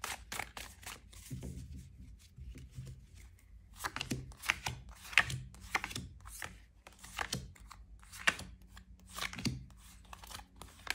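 Tarot cards being handled and laid out in a spread on a table: irregular sharp taps and snaps of card stock, a few louder ones in the middle and near the end.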